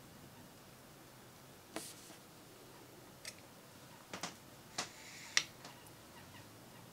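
Light clicks and taps of AAA Eneloop batteries being handled and set into the cardboard tray of their paper package, about half a dozen separate small knocks, the loudest a little past the middle.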